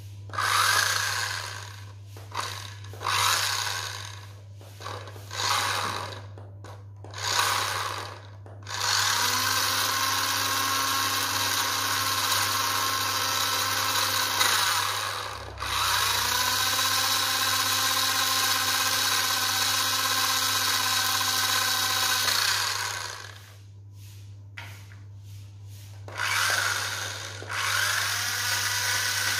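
Toy RC car's small electric drive motors whirring as its wheels spin: a string of short bursts, then two long steady runs of several seconds each, then a few short bursts again near the end.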